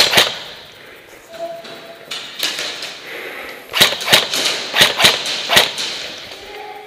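Airsoft guns firing single shots as sharp cracks: two at the start, then a run of about six shots in the second half.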